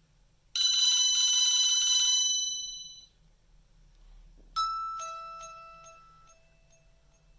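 Nokia mobile phone ringtones playing through the phone's small speaker. A bright, buzzy chime lasts about two and a half seconds and fades. After a pause, a bell-like tone strikes and a lower second note joins, both ringing and slowly fading.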